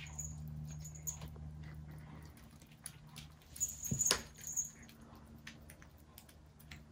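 Kittens crunching dry kibble from a shared plate: many small, crisp crunches and clicks, with a louder knock about four seconds in.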